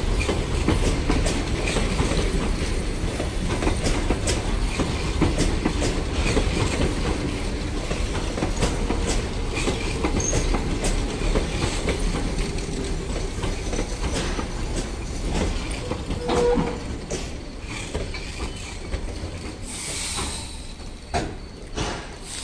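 Passenger coaches rolling past and slowing: a steady rumble with wheels clicking over rail joints that gradually fades. A short squeal comes about two-thirds of the way in, and brief squeals with a hiss come near the end as the train brakes to a stop.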